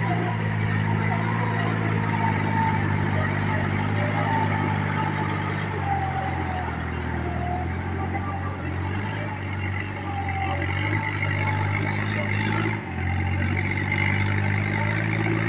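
Compact tractor's diesel engine running steadily under load while its rear rotavator tills wet paddy mud. The engine note sags for a few seconds midway and dips briefly once near the end.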